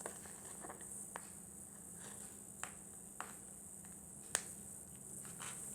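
Light, sharp clicks or taps at uneven intervals, about seven of them, the loudest about three-quarters of the way through, over a steady faint hiss.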